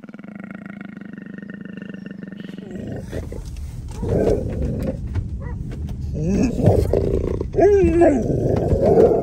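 Steady held tones, then a low rumble inside a car cabin with loud animal growls and drawn-out yowls that glide up and down, loudest about six to nine seconds in.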